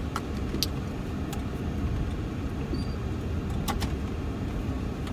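Perodua Kancil 660's small three-cylinder engine running, heard from inside the cabin as a steady low rumble, with a few light clicks.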